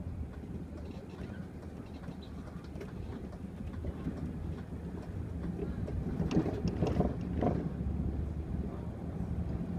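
Mercedes-Benz city bus heard from inside the cabin: a steady low engine drone with road noise, getting louder from about the middle as the bus picks up speed.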